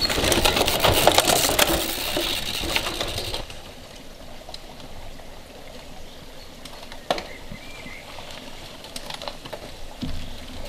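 Mountain bike rolling over a dirt forest trail: a dense crackle of rapid ticks, loud for the first three and a half seconds, then dropping suddenly to a quieter crackle, with one sharp click about seven seconds in.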